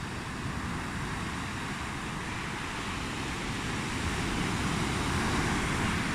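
Ocean surf washing in: a steady rush of noise that swells about four seconds in and eases near the end.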